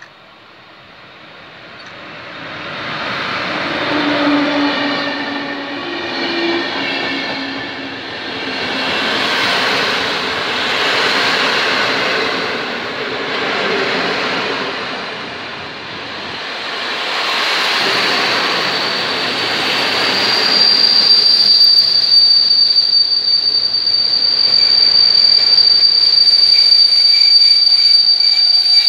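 Passenger train led by a PKP Intercity EU160 Griffin electric locomotive rolling past through the station. The rumble of wheels swells and fades as each coach goes by. From about two-thirds of the way in, a steady high-pitched wheel squeal rings over it.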